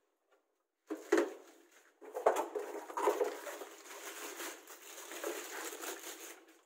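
Close rustling and handling noise against the microphone, with two bumps about one and two seconds in, then steady rustling that stops just before the end.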